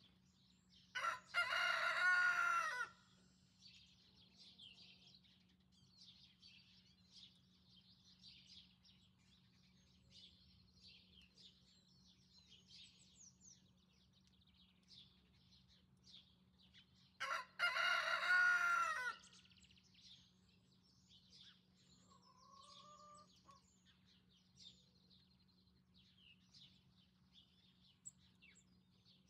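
Rooster crowing twice, each crow about two seconds long and about sixteen seconds apart, with small birds chirping faintly throughout.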